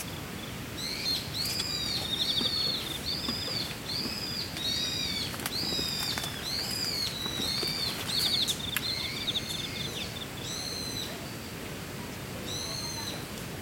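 A bird calling over and over outdoors: high chirps that rise and fall, about two a second, with a short fast trill between some of them. The calling pauses about eleven seconds in and starts again near the end.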